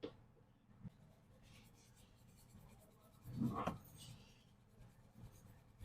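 Light scraping and small clicks from repair tools and phone parts being handled, with one louder scrape about three and a half seconds in.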